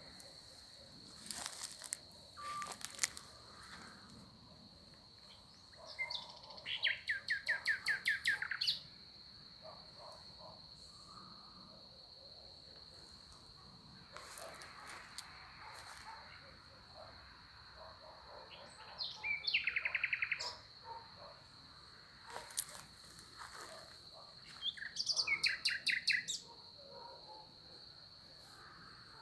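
A songbird singing three phrases of fast repeated notes, with a few short sharp chirps between them, over a steady high insect trill.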